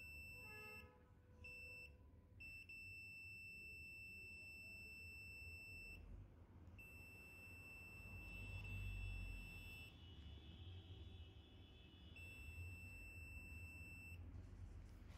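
Faint, steady, high-pitched electronic beep, sounding in five stretches of about half a second to four seconds with short gaps between them.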